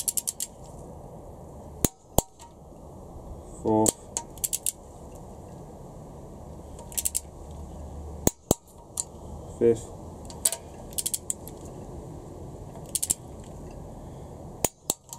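Torque wrench on a socket and extension, tightening cylinder head stud nuts in sequence to 60 ft-lb. Short runs of fast ratchet ticking alternate with sharp clicks that come in pairs about every six seconds, the wrench reaching its set torque on each nut.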